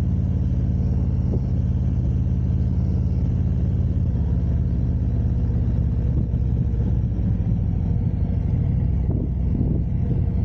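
Harley-Davidson Road Glide's V-twin engine running at steady revs, a low, even rumble.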